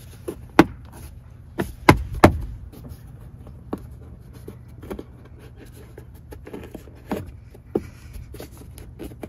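Sharp plastic clicks as the A-pillar trim panel of an Infiniti G37 coupe is pressed by hand onto its retaining clips. Several single snaps, the loudest three close together about two seconds in, and two more near the end.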